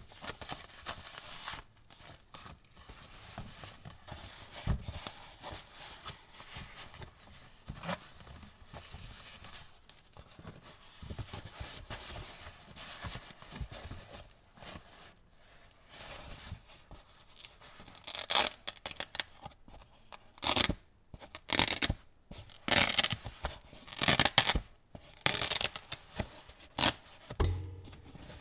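Synthetic fabric carrying pouch rustling as gloved hands unfold and handle it. The rustling is soft at first, then turns into a run of loud, sharp crackling rustles in the second half.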